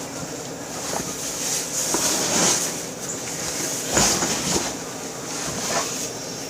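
Rustling handling noise with a few soft knocks scattered through it.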